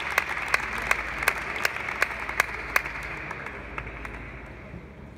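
Applause with sharp, evenly spaced claps about three a second, fading away over the first few seconds.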